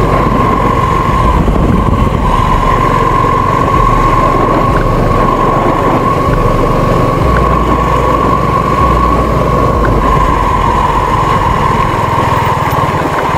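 Suzuki V-Strom SX 250's single-cylinder engine running steadily while the motorcycle is ridden along a dirt track, with a constant high whine over the engine rumble.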